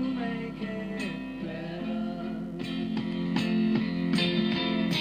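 Background music with guitar, notes held and struck in a steady rhythm.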